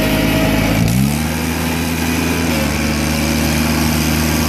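John Deere 322's Yanmar three-cylinder 18 hp gasoline engine running under way; about a second in it speeds up with a rise in pitch, then holds steady at the higher speed.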